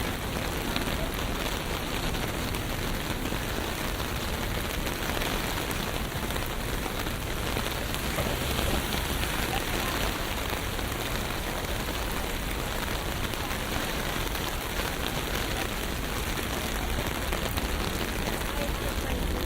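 Steady rain falling on city streets, with a low rumble of traffic beneath it.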